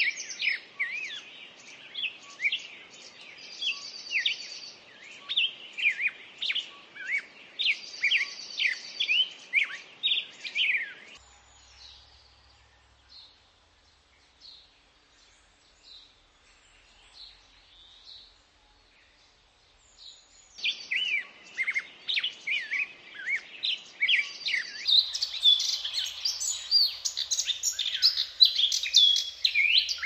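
Many small birds chirping, a busy chorus of short, quick calls. About a third of the way in it drops to a few faint calls for roughly nine seconds, then picks up again and grows denser toward the end.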